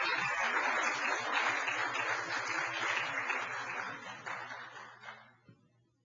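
Audience applauding, a dense patter of many hands that fades away near the end and then cuts off.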